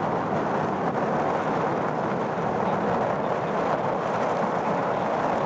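Jet engines of a four-engined Boeing 747 freighter running on the runway, heard from behind as a steady, even rushing noise that neither rises nor falls.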